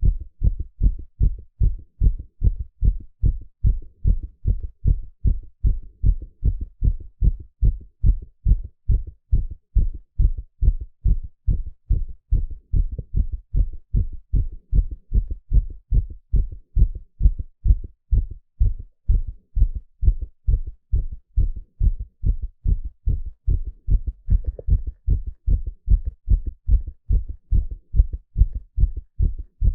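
A man's heartbeat heard through a stethoscope on the chest: a steady, regular run of low thuds.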